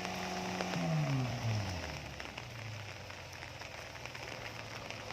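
Carburetted Suzuki Vitara engine in a Jimny running steadily, its revs dropping about a second in and settling at a lower, steady speed, with a crackling hiss under it.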